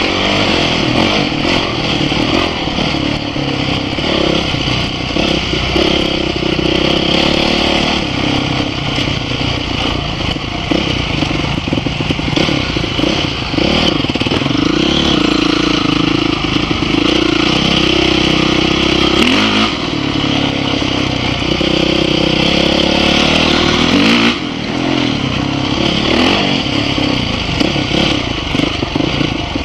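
Dirt bike engine heard from the rider's own bike, running hard and revving up and down with the throttle over a dirt trail. It eases off briefly a few seconds before the end.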